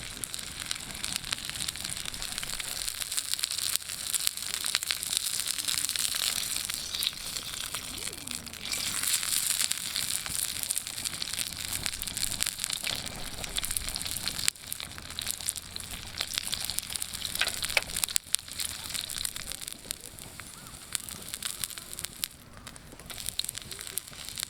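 Wood campfire crackling: a steady run of small pops and clicks over a hiss.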